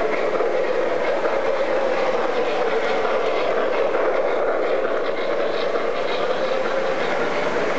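O-gauge MTH RailKing model trains rolling on three-rail track: a steady rumble from the wheels and motors, with faint ticking, as a train passes close by.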